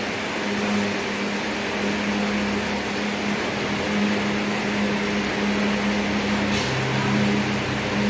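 Steady machine hum with an even hiss over it. The low hum wavers in and out, and a second, deeper hum joins near the end.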